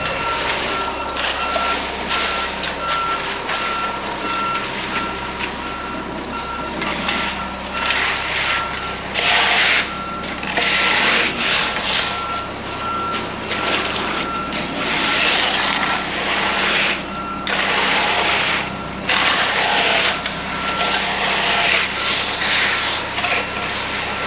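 A truck's reversing alarm beeps steadily at one pitch over a running diesel engine. From about nine seconds in, loud bursts of rushing hiss come and go, each lasting around a second.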